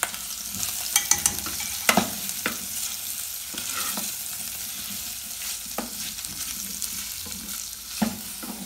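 Beef pieces and sliced onions sizzling in an aluminium saucepan as they are stirred with a cooking spoon. The spoon scrapes and knocks against the pot several times.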